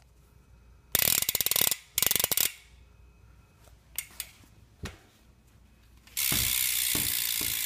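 BMX rear hub freewheel (Profile hub) ratcheting as the wheel spins: two short bursts of rapid pawl clicking about a second in, a few single clicks, then a loud, continuous fast buzz of clicks from about six seconds in.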